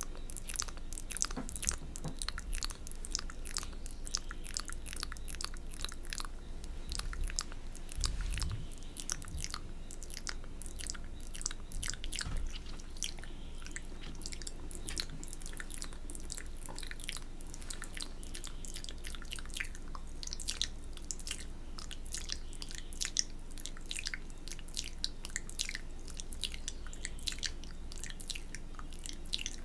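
Wet mouth sounds very close to the microphone: a dense, continuous crackle of spit clicks, lip smacks and finger-licking, as in ASMR spit painting.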